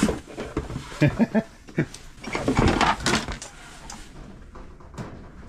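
Dishes and plastic food containers knocking and rattling against each other as they are lifted out of a cardboard box. There are a few sharp knocks about a second in and a longer rattle and rustle around the middle.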